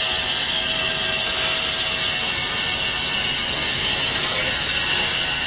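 Vertical band-blade foam cutting machine running with a steady high-pitched hiss as a foam block is pushed through the blade.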